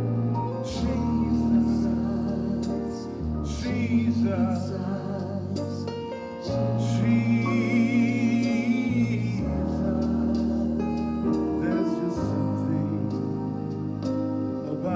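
Live worship music: singing over held chords with a steady bass underneath.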